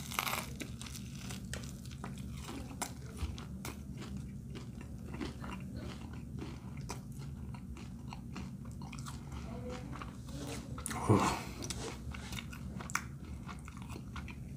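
A person bites into a brisket sandwich on a toasted roll, a crisp crunch right at the start, then chews steadily with small crunches and wet mouth clicks. A brief louder sound comes about eleven seconds in.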